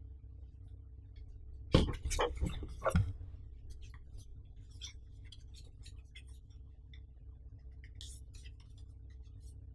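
Small paperboard box being handled: a few louder knocks and scrapes about two seconds in as it is picked up off the table, then light clicks and taps as it is turned over in the hands. A steady low hum runs underneath.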